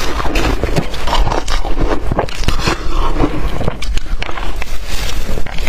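Blender-crushed ice being bitten and chewed close to the microphone: a loud, continuous run of sharp crunching crackles.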